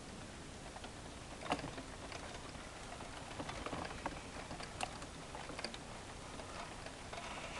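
Scattered light clicks and taps over a steady hiss, the loudest click about one and a half seconds in: handling noise from a hand-held camera. No helicopter is audible.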